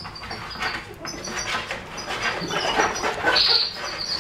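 Four-week-old puppies squeaking and whimpering in short, high-pitched cries while they wriggle and mouth a hand. A louder squeal comes about three and a half seconds in.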